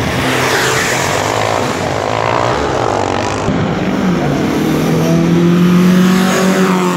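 Car engines running at a drag strip; about four seconds in one engine's pitch rises and is held steady at high revs, loudest near the end.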